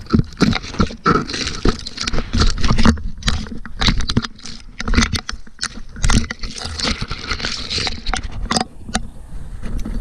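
Camera worn by a Border Collie jostling and rubbing as the dog moves fast over the forest floor: dense, irregular knocks, scuffs and rustles of moss, leaves and twigs against the camera.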